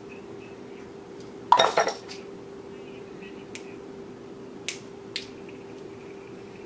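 Metal clinks and clicks from racquet-stringing tools and clamps: a loud jangling cluster about a second and a half in, then two sharp clicks near the end, over a steady low hum.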